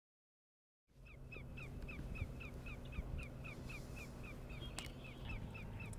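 A bird calling in a fast, steady series of short falling chirps, about four or five a second, over a low rumble. It starts about a second in, with a single click near the end.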